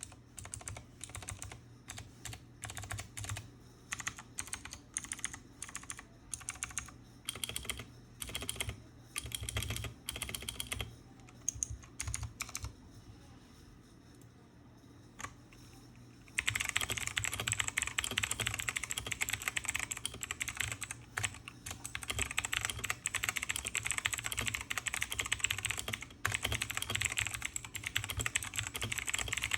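Redragon Fizz K617 mechanical keyboard with clicky blue switches being typed on. Scattered keystrokes and short bursts at first, then from a little past halfway fast, continuous typing that is much louder.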